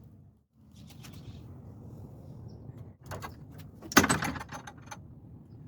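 Sharp metal knocks and clanks over a steady low rumble: a few clicks near the start, a cluster of knocks a little after three seconds, then one loud clang about four seconds in that rings for about a second.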